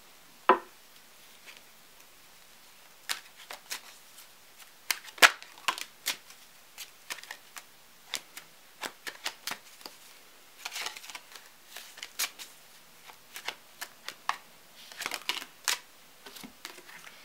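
A tarot deck being shuffled and cards drawn and dealt onto a cloth-covered table: an irregular run of short card snaps and flicks, bunched into quick clusters.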